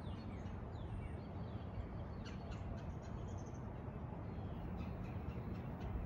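Mitsubishi Electric mini-split heat pump outdoor unit with a rotary compressor, running with a steady low hum. Birds call faintly in the background.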